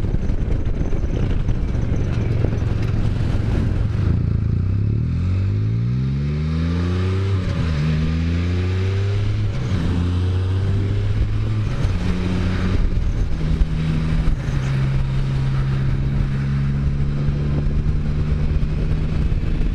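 Can-Am Spyder's engine pulling up through the gears, its pitch rising and dropping back at each shift for several seconds, then holding a steady cruise. Wind rushes over the helmet microphone, heaviest in the first four seconds.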